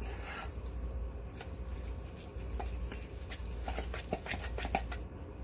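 A utensil stirring and scraping soft compound butter (butter with parmesan, chives and garlic) in a small stainless steel bowl, with scattered light clicks of the utensil against the metal.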